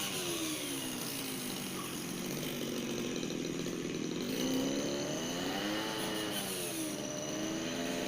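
Petrol brush cutter engine running. Its pitch drops over the first couple of seconds, stays low, then revs up and eases back twice as the throttle is worked.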